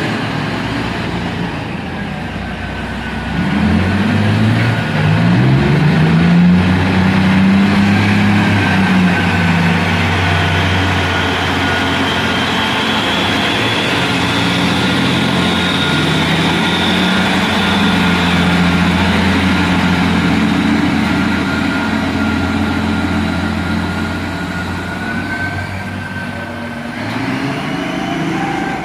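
Komatsu HD785 haul truck's big V12 diesel engine revs up a few seconds in, then runs steadily under load, with a high whine on top. The engine note drops and changes near the end.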